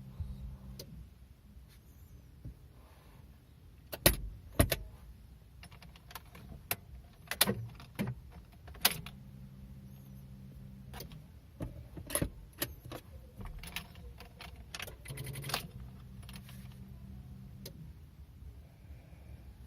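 Car keys jangling and clicking in the ignition of a 2006 Honda City automatic. Three times a steady low electric hum lasts about two seconds, and the engine does not start: a no-start.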